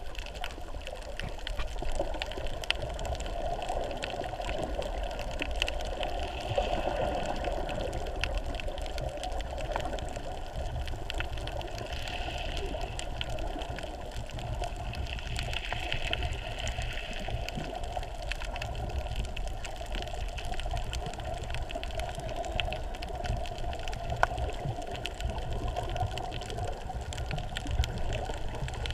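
Muffled underwater water noise heard through an action camera's waterproof housing: a steady rush with a low rumble and many small scattered clicks.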